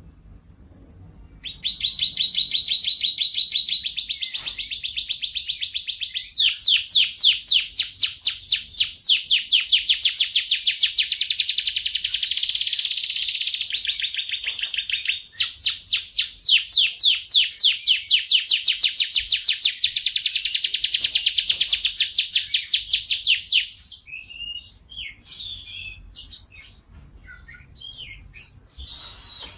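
Domestic canary singing: long runs of rapid, repeated high trilling notes starting a second or so in, with a brief break about halfway, then softer scattered chirps near the end.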